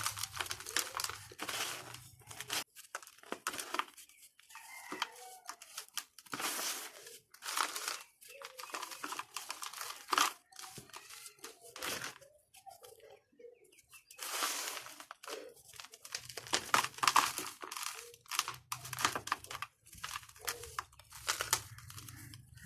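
Dry, crunchy red dirt balls crumbling and breaking apart, in irregular bursts of crackling and crunching with short pauses between.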